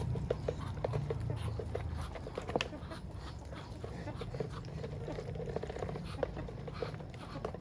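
Ducks and chickens close by: many short, irregular clicks and taps with soft low calls among them, over a steady low hum.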